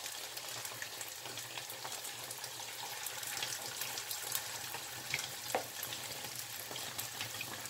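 Spoonfuls of corn fritter batter frying in shallow hot oil in a nonstick pan: a steady sizzle, with a couple of light clicks about five seconds in.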